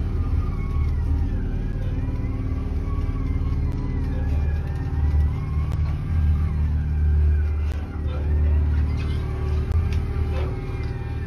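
Fishing boat's diesel engine running with a steady low rumble.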